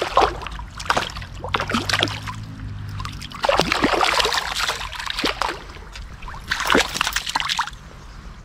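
Water splashing and sloshing in a string of short splashes, busiest about halfway through and again near the end.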